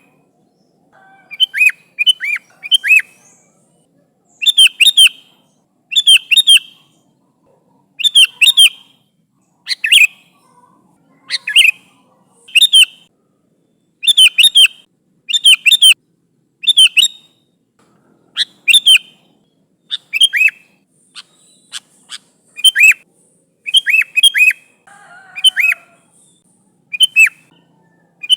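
Sooty-headed bulbul (kutilang) singing lively, chattering calls: short phrases of quick whistled notes repeated every second or two.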